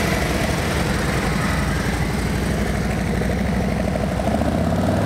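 Police touring motorcycle's engine running at low speed as the bike rolls slowly past, a steady low rumble.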